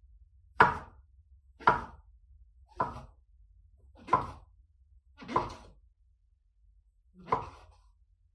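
Six slow chopping strokes, about a second apart, each a single sharp knock.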